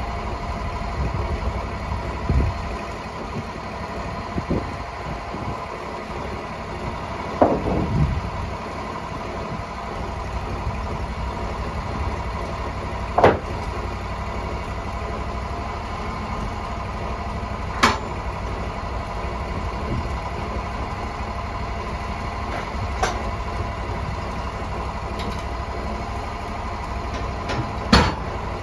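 Sawmill engine running steadily, with sharp knocks about every five seconds.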